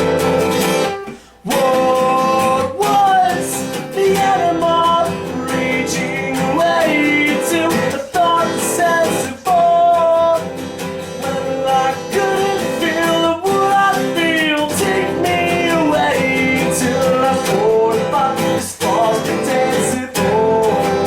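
Acoustic guitar music in an instrumental break: strummed chords under a gliding melody line. The music stops briefly about a second in, then comes back.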